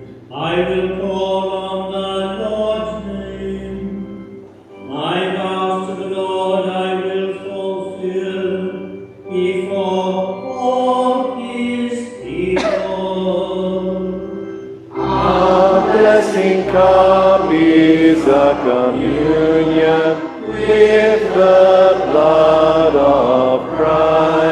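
Sung responsorial psalm at Mass: a voice chants the psalm in phrases of a few seconds each, over a low held accompaniment. The singing grows louder and fuller about fifteen seconds in.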